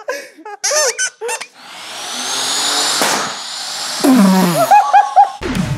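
Motor-driven propeller spinning up: a whirring rush of air with a thin whine that climbs in pitch, holds, then eases down. Laughing voices come before it and shouts near the end.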